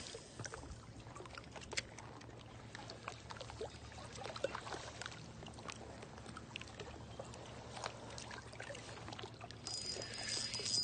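Small waves lapping and sloshing, with scattered light clicks. A thin, steady, high whine comes in about a second before the end.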